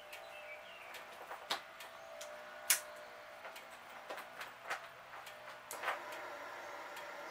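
A faint steady hum with a handful of sharp clicks and taps scattered through it, the loudest about two and a half seconds in.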